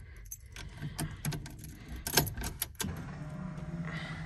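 A bunch of car keys jangles and clicks as the ignition key is put in and turned. About three seconds in, a steady low hum starts as the ignition comes on.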